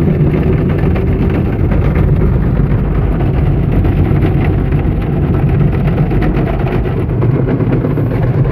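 Automatic car wash working over a car, heard from inside the cabin: water and soapy wash pouring over the roof and glass as a loud, steady, deep noise.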